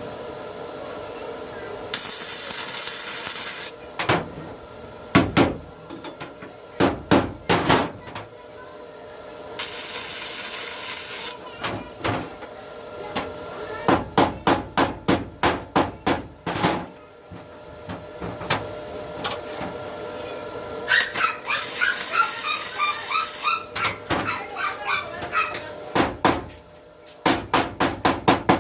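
Irregular hammer blows on metal, typical of panel beating during a small truck's body restoration, with a few short bursts of hiss. A dog barks now and then.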